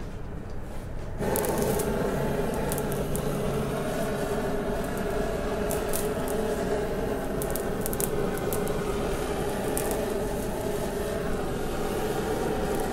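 Handheld kitchen blowtorch flame lit about a second in and running steadily, with scattered crackles as it browns the mayonnaise topping on baked lobster.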